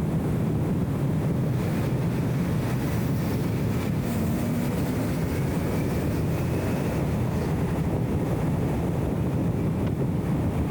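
BMW E34 M5 Touring's straight-six pulling hard under full acceleration in a tunnel, a faint engine note rising in pitch over several seconds. It is heavily muffled under a dense low rumble of road and wind noise left by the camera's anti-wind audio filter.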